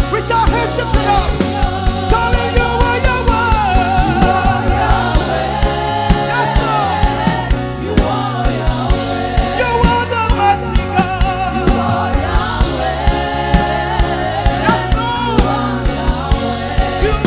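Live gospel worship music: voices singing together over a band with a steady drum beat.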